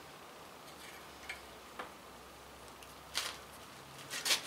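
Small open-end wrench working a hand tap into a cast-iron exhaust manifold bolt hole: a few light metallic clicks as the wrench shifts on the tap, the loudest two near the end.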